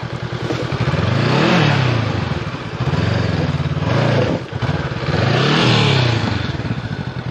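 Honda CB500X's parallel-twin engine being ridden hard, its pitch rising and falling three times as the throttle is opened and eased off.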